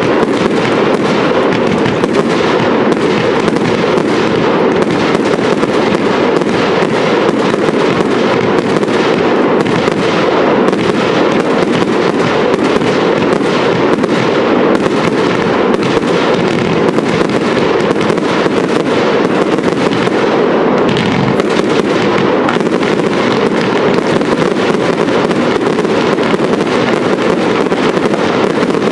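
Professional fireworks display: a dense, unbroken barrage of rapid bangs and crackle from aerial shells and rising comets, with no pause between them.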